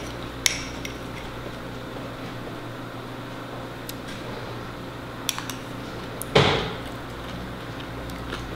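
Metal spoon clinking against a ceramic mug in a few light, separate taps as someone eats from the mug. About six seconds in comes a louder, half-second scrape that drops in pitch. Under it all is a steady low room hum.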